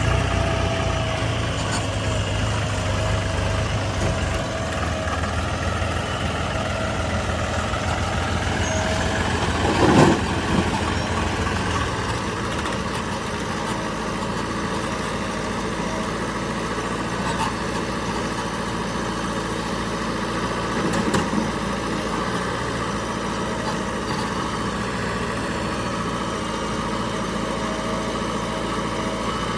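Diesel engines of a JCB 3DX backhoe loader and a tractor running steadily at low revs, with a brief loud thump about ten seconds in.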